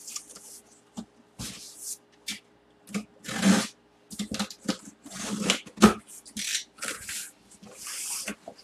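A cardboard shipping box is handled and opened by hand, its flaps pulled apart. The sound is irregular cardboard scraping and rustling with a few short knocks.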